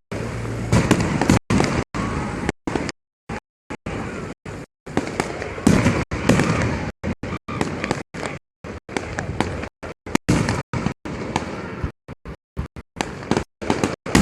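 A rapid, irregular string of loud gunpowder bangs, like firecrackers or blank shots, going off one after another. The sound cuts out to silence many times for a fraction of a second between them.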